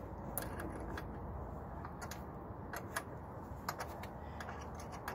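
Faint, irregular metal clicks of a small wrench being worked on an electric ATV's tie rod adjuster, which is turned a little at a time to set the wheel alignment.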